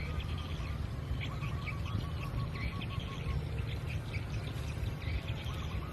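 Bird calls, including a quick run of short repeated notes, over a steady low rumble.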